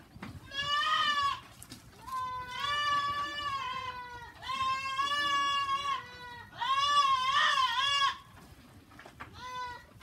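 Goats bleating: five calls, the middle three long and wavering, then a short one near the end.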